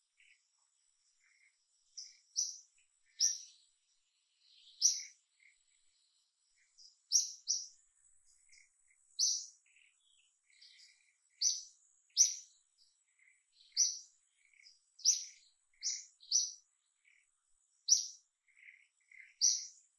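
Small birds chirping: short, high chirps repeated every second or two, over a faint steady high whine.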